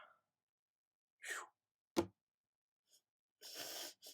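A person's short, breathy sounds, like sighs and gasps between sneezes, separated by dead silence. There is one sharp click about two seconds in and a longer breathy burst near the end.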